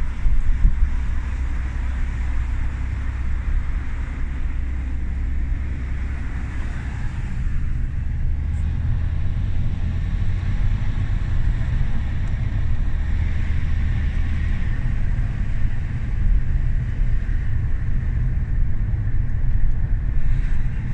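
Steady low rumble of a car being driven, engine and tyre noise with a light hiss, and a couple of brief knocks right at the start.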